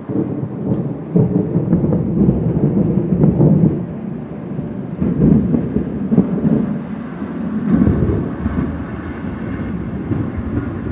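Thunder rumbling: a long, low, rolling peal that swells several times and eases off near the end.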